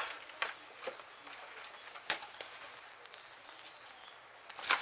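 A few sharp clicks and knocks of food containers being handled and set down inside a refrigerator, with quiet handling in between; the loudest click comes near the end.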